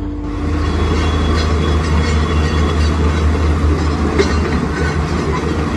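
Tata Hitachi excavator's diesel engine running steadily with a low drone, over the rush of floodwater, starting about a third of a second in.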